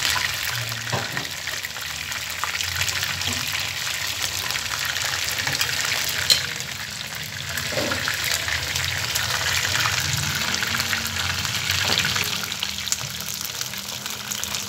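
Chicken pieces frying in a shallow layer of oil in a nonstick pan: steady sizzling and crackling, with a single sharp click about six seconds in.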